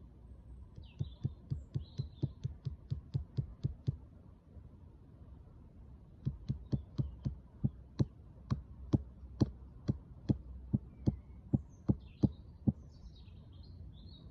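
Two runs of rapid, evenly spaced sharp taps, about four or five a second, the second run louder and slightly slower. Small birds chirp faintly at the same time.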